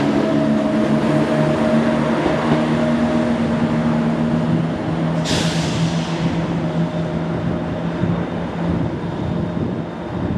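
ScotRail Class 170 Turbostar diesel multiple units: the underfloor diesel engines of one unit hum steadily as it pulls away along the platform. About halfway through a short sharp hiss fades out over about a second, and the engine rumble of a second unit rolling in carries on, a little quieter.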